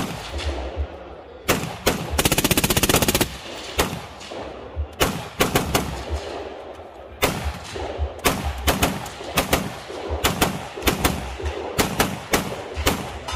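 Gunfire: a rapid full-automatic burst lasting about a second, starting about two seconds in, among many separate shots that come in places two or three a second.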